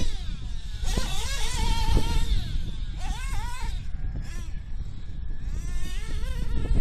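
Alpha Dragon nitro engine in an RC buggy, revving hard with a high whine that rises and falls in pitch in several sweeps as the buggy is driven around the track, during the engine's break-in.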